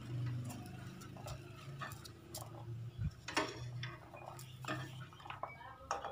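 A metal ladle scraping and clinking in a double-sided frying pan as freshly popped popcorn is scooped out, giving irregular light clicks and rustles with one louder knock about three seconds in. A low steady hum runs underneath.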